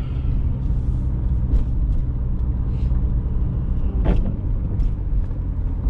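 GMC Sonoma pickup driving, a steady engine and road rumble, with a short knock about four seconds in.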